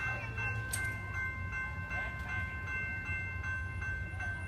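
Railroad grade crossing bell ringing in an even rapid rhythm, about two to three strokes a second, warning of an approaching train, over a low rumble. A single sharp click about a second in.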